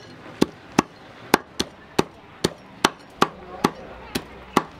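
Steel meat cleaver chopping grilled meat on a thick wooden chopping block: a steady run of sharp knocks, about two to three a second.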